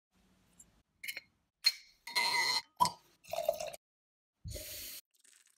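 Wine being opened and served: clicks of a waiter's-friend corkscrew and a sharp cork pop, then wine poured and swirled in a glass. The sounds come as a string of short separate events, each under a second.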